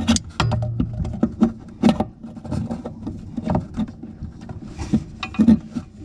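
Long-reach tap wrench clicking and knocking against a tap's back nut and tail as its jaws are worked up onto the nut, in irregular metal clicks with a few louder knocks. The jaws will not open far enough to get around the nut, which is recessed into the worktop.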